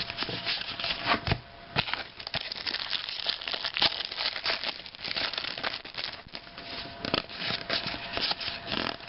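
Trading cards being leafed through by hand: cardboard cards sliding and flicking against one another in an irregular run of soft rubs and clicks.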